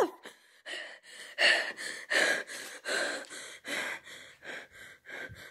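A boy breathing hard close to the microphone in quick, gasping breaths, about two to three a second.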